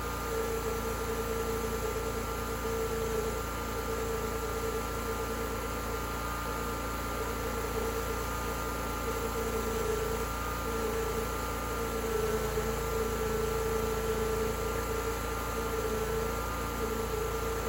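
Homemade sawmill running steadily, with a held mechanical tone that wavers only slightly.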